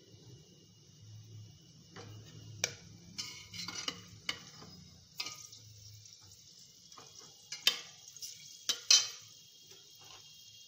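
Metal kitchen utensils clinking and scraping: a spoon stirring and knocking against metal pots and containers, in irregular sharp clinks, the loudest two about eight and nine seconds in.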